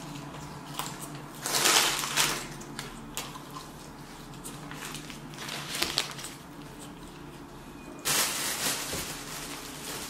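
Chewing a mouthful of chicken gyro and crinkling its paper wrapper in short bursts, then a longer paper-bag rustle near the end. A faint steady low hum runs underneath.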